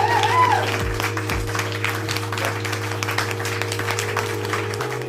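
Background music with steady held low tones and a dense crackling texture; a voice is briefly heard at the start.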